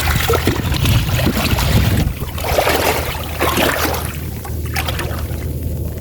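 Water splashing and trickling in shallow floodwater, over a steady low hum.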